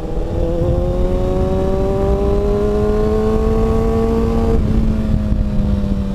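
Kawasaki ZX-6R 636's inline-four engine pulling with revs climbing steadily. About four and a half seconds in the revs drop suddenly, then the engine runs on at a lower pitch, under low wind rumble.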